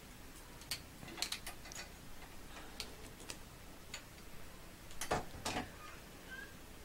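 Faint, scattered light clicks of small metal safety pins clinking together as they are picked up from a pile, with two louder clicks about five seconds in.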